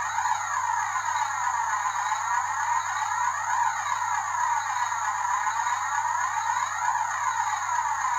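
Electronic background music: a sustained, hissing synthesizer tone swept up and down by a phaser-like effect, the sweep repeating about every three and a half seconds, with no beat.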